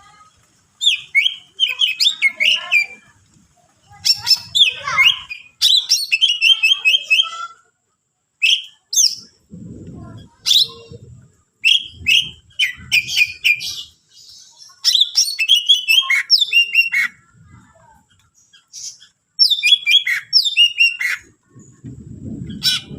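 Cucak ijo (green leafbird) singing in loud bursts of fast, sharp chattering and sweeping whistled notes, separated by short pauses: a full, varied song packed with mimicked phrases. A few short low-pitched sounds fall in the gaps about ten to thirteen seconds in.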